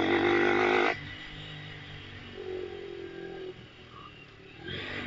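Kymco Quannon 125's single-cylinder four-stroke engine running under throttle, then dropping sharply to a quiet low-rev coast as the throttle is closed about a second in. It picks up again near the end.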